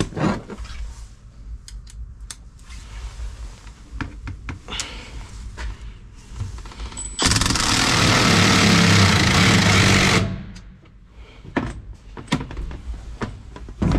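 Cordless drill running for about three seconds, driving a self-tapping screw into the van's metal floor. Scattered clicks and knocks of handling come before and after.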